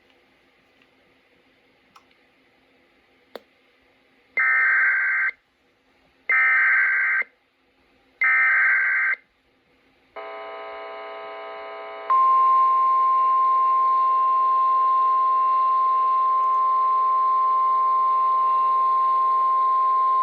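Emergency alert broadcast from a weather radio: three short, harsh bursts of SAME data header, each about a second long and two seconds apart, then a steady single-pitched NOAA Weather Radio warning alarm tone held for about nine seconds over a low buzz. Together they open a flood warning.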